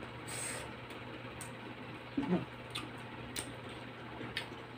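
Quiet eating sounds of people chewing grilled meat by hand: a few small lip-smacking and chewing clicks, a brief breathy hiss near the start and a short murmur about two seconds in, over a faint steady hum.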